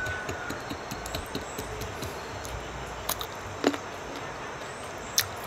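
Quiet background ambience with a few faint, short clicks, three or so spread over several seconds.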